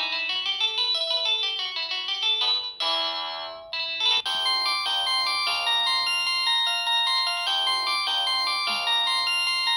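Samsung SGH-X480 mobile phone playing its polyphonic ringtones. One tune ends on a held chord that fades about three seconds in, and a different melody starts about a second later.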